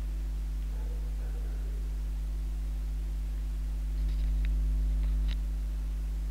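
Steady low electrical hum, with a brief low rumble and a couple of faint clicks about four to five seconds in.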